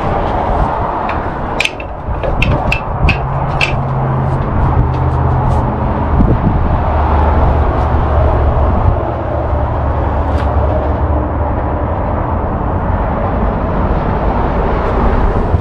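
A quick run of sharp metal clicks and knocks in the first few seconds, with one more about ten seconds in, as levers in a steam locomotive's cab are handled. Under them runs a steady low rumble.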